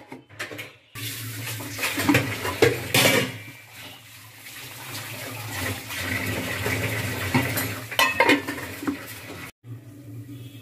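Aluminium cooking-pot lid clanking against the pot several times as it is lifted off and put back. Between the clanks, a pot of keema and potato curry bubbles at a simmer over a steady low hum.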